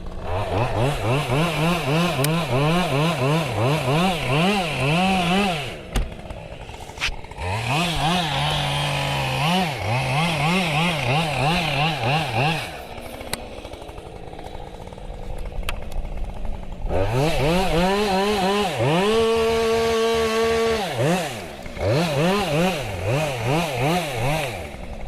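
Two-stroke chainsaw cutting into a tree trunk, its throttle pumped in quick revs about twice a second. The engine drops back to idle twice, once briefly about six seconds in and again for several seconds in the middle, and near the end it is held at a steady high pitch for a couple of seconds.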